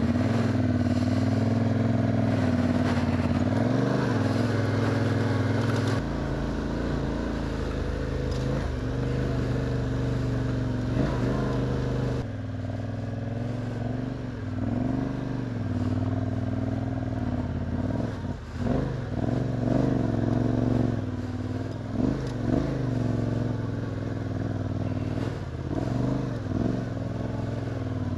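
Yamaha Ténéré 700's parallel-twin engine running under way on a dirt track. It holds a fairly steady pitch at first, then the revs rise and fall over and over through the second half.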